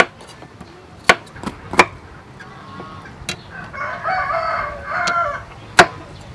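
Kitchen knife chopping bitter gourd on a thick wooden chopping block: a handful of sharp chops, the loudest sounds. A rooster crows once, about four seconds in.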